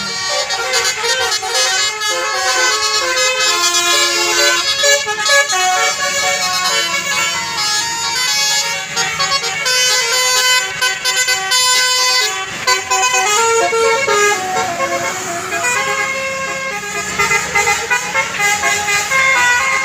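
A bus's Basuri 'telolet' multi-tone air horn playing melodies of stepping tones, note after note, with a short break about twelve seconds in.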